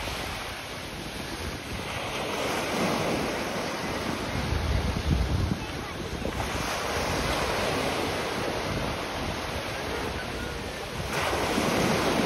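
Ocean surf washing through the shallows, with wind buffeting the microphone in gusts. The surf swells and a wave breaks loudly about eleven seconds in.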